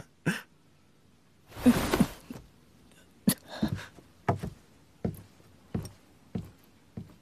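Evenly paced footsteps, sharp knocks about every two-thirds of a second, growing fainter as they walk away. Just before them, a short laugh at the start and a brief rush of noise about two seconds in.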